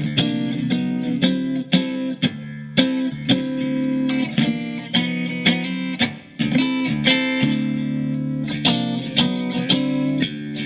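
Mexican-made Fender Stratocaster electric guitar in drop D tuning, playing chords and riffs with frequent sharp pick attacks, as a sample of how it sounds after a setup.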